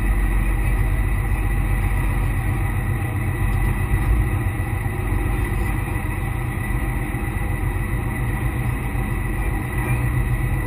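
Jet boat's engine running at low speed: a steady low rumble that holds an even level throughout.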